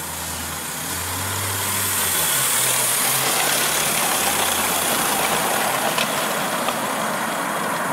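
Small live-steam garden-railway locomotive hauling a train of wagons past close by: exhaust hiss and wheels running on the rails, swelling over the first two seconds and staying loud.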